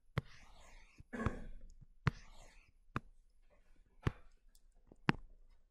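Six faint, sharp taps, about one a second, of a stylus on a tablet screen during editing of handwritten notes, with faint breathy noise between them.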